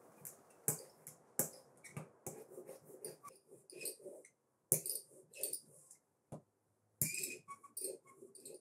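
Rubber roller rolling white UV-curable solder mask across a CEM1 copper-clad board: faint, irregular clicks and short crackles as it passes back and forth.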